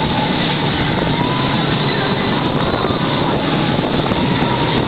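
Motor of a high-speed ocean raft running flat out: a steady engine noise with a faint wavering whine, mixed with rushing wake water and wind buffeting the microphone.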